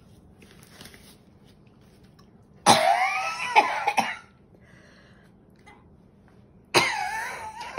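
A woman coughing in two harsh fits, the first about three seconds in and the second near the end, from the burning of a chip made with Carolina Reaper and scorpion chili peppers.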